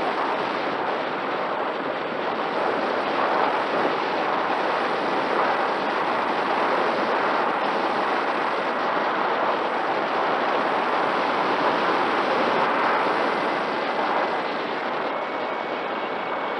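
Air rushing over the microphone of a camera carried on a Mini Talon RC plane in flight: a steady rush of wind noise with a faint steady whine of the electric motor beneath it, easing slightly near the end.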